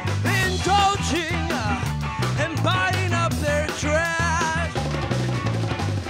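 Live band playing a song: electric bass line, drum kit and hand drums (congas and bongos) under a male lead vocal sung into a microphone.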